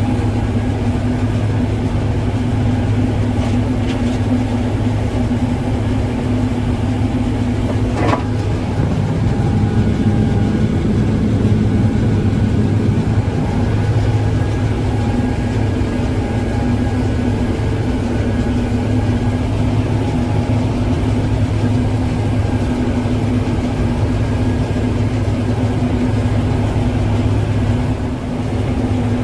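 Combine harvester running steadily while cutting winter barley. A sharp click comes about eight seconds in, and the machine is a little louder for a few seconds after it.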